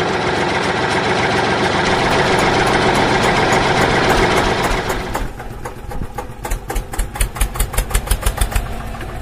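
Tractor engine running loudly and steadily, then dropping about five seconds in to a slower chugging of about three beats a second.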